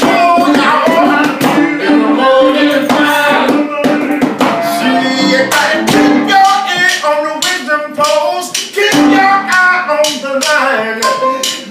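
Live band music: voices singing over guitar, with sharp tapping or hand-percussion strokes keeping the rhythm.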